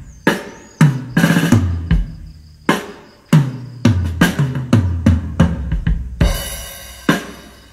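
Recorded drum kit played loud through a PA speaker stack: an 18-inch subwoofer cabinet powered by a SEA PXM10 amplifier, with two 15-inch mid drivers above it. You hear kick drum, snare and rimshot hits, with heavy low bass on each kick. The hits come in uneven groups, with a quick fill in the middle and a washy crash about six seconds in.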